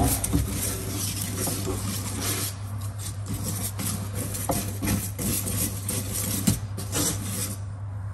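Wire whisk stirring thick cake batter by hand in a stainless steel mixing bowl: continuous scraping and swishing, with a few light clinks of the whisk against the bowl.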